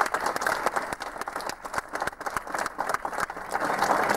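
Audience applauding at the end of a song, a dense patter of many hands clapping that swells again about three and a half seconds in.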